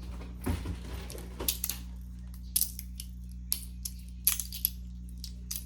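Irregular sharp metallic clicks and clacks from a metal push-slider fidget toy, a Gao Studio Sigma with small balls added inside to rattle, being handled and worked in the hand.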